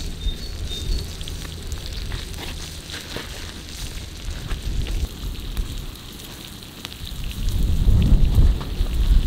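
Fat sizzling and crackling on a cast-iron griddle around a ribeye steak and vegetables, many small pops over a steady hiss. A low rumble underneath swells louder near the end.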